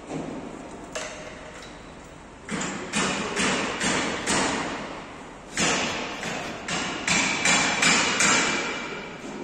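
Metal clanks and knocks from work on a truck-cab straightening bench: two runs of sharp, evenly spaced blows, about two to three a second, the later run with a faint ring.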